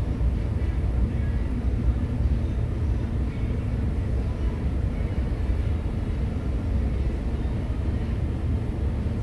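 City bus running, heard from inside the passenger cabin: a steady low rumble of engine and road noise.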